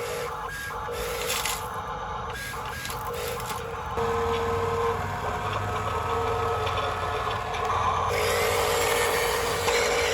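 Small electric motors of a toy excavator and construction vehicles whirring steadily, with abrupt changes in the sound about four and eight seconds in.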